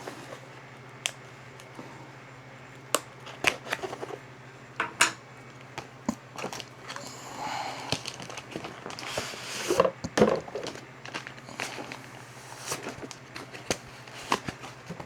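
A plastic printer cleaning cartridge and its packaging being handled: scattered clicks and knocks of hard plastic, with crinkling of wrapping in the middle and the loudest knocks a little past the middle. A steady low hum runs underneath.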